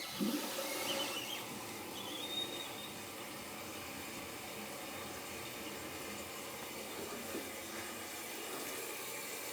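Fluidmaster 400 toilet fill valve refilling the tank just after the water supply is turned back on: a steady hiss of water that starts suddenly, a little louder for the first second, then runs evenly.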